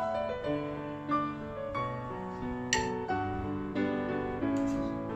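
Background piano music, a melody of held notes moving along steadily, with one short, sharp noise near the middle.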